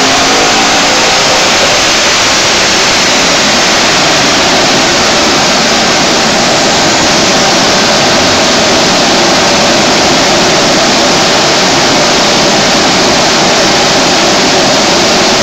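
Large electric cooling blower running steadily in front of the car on the dyno: a loud, even rush of air. Right at the start the M5's V8 revs fall away after the power run.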